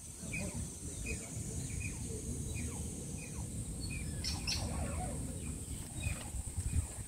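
Asian small-clawed otters chirping: short, high, falling squeaks repeated once or twice a second, loudest about four and a half seconds in.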